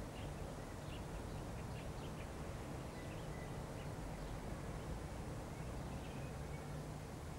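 Faint outdoor background: a steady low rumble with a few faint bird chirps scattered through it.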